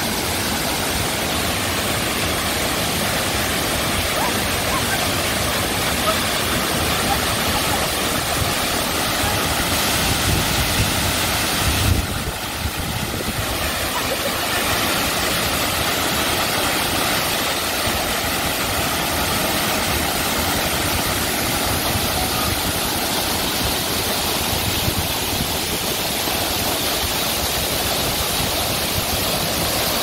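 Waterfall rushing steadily, with a brief low rumble and a slight drop in the sound about twelve seconds in.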